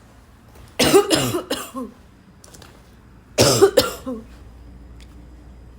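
A person coughing in two bouts about two and a half seconds apart, each bout a quick run of two or three coughs.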